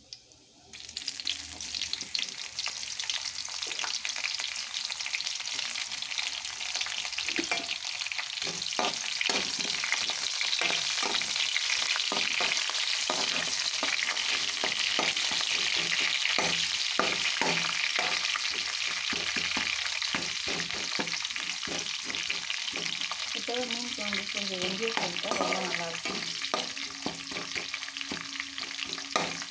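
Sliced onions and curry leaves sizzling in hot oil in a metal kadai, starting suddenly about a second in as the onions go into the oil. A perforated metal spatula scrapes and knocks against the pan as they are stirred.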